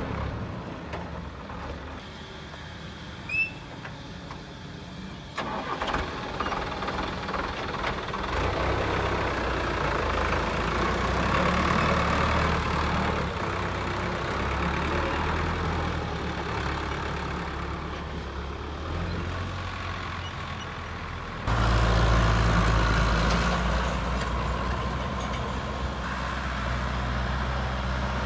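Heavy-vehicle engine running steadily, jumping abruptly louder about five seconds in and again a little past twenty seconds.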